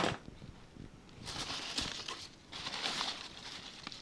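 Crumpled newspaper packing rustling and crinkling as it is pulled out of a shipping box, in two spells starting about a second in.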